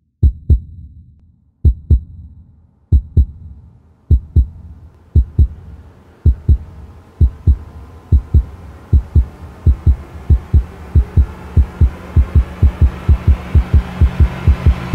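Heartbeat sound effect in a soundtrack: low double thumps, lub-dub, that speed up from about one beat every second and a half to several a second. Underneath, a rising swell of noise and tones builds toward the end.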